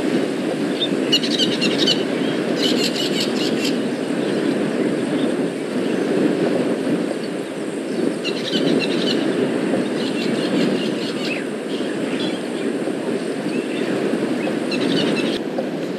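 Outdoor bush ambience: a steady low rumble with birds calling several times in short bursts of quick, high repeated notes.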